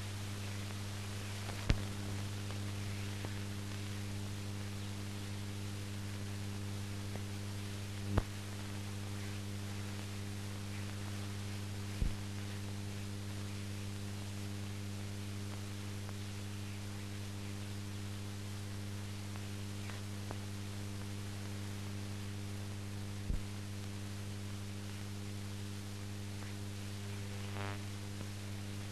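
Steady electrical mains hum with a layer of hiss, broken by a few sharp clicks spread across the stretch. This is the noise floor of a silent newsreel transfer that has no soundtrack of its own.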